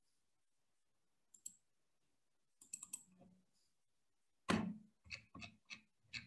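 Faint clicking of a computer mouse as a document is scrolled: scattered short sharp clicks, the loudest about four and a half seconds in, followed by a quick run of several more.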